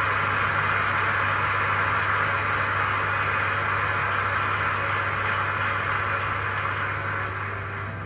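Audience applause in a theatre, even and steady, easing slightly near the end, over a low electrical hum.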